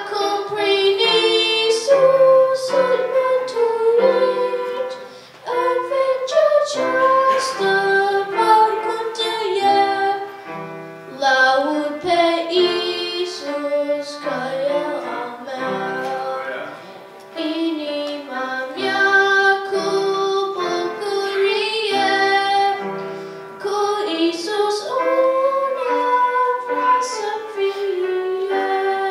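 A boy singing a song solo into a microphone, with keyboard accompaniment holding steady chords under the melody.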